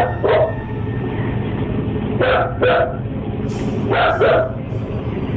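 Yellow Labrador retriever barking in three quick pairs of woofs, about two seconds apart, over a steady low hum.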